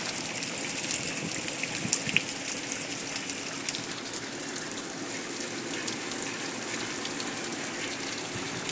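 Heavy rain falling steadily: a continuous hiss with many small raindrop ticks.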